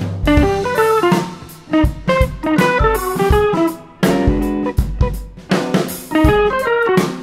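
Background music: a plucked guitar melody over a drum kit.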